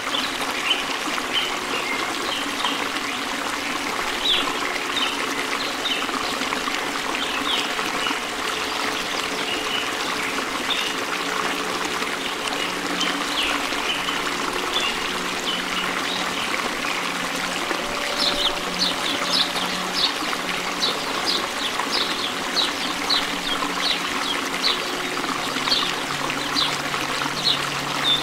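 Water trickling and running steadily, with short high chirps scattered over it that come thicker in the second half.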